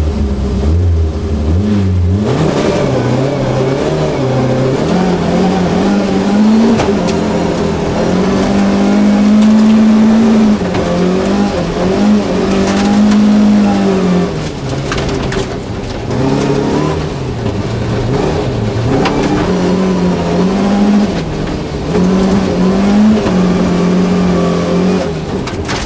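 Volvo 240 rally car's engine heard from inside the cabin at stage pace on gravel, revving up and falling back again and again through gear changes, with long pulls at high revs. Gravel noise runs underneath, with a few sharp knocks.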